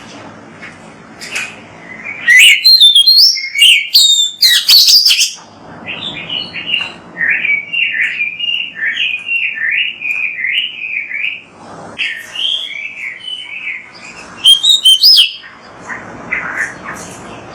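Oriental magpie-robin (kacer) singing in full song: two loud bursts of rapid, sharp, very high notes, and between them a long run of quick rising-and-falling whistled notes.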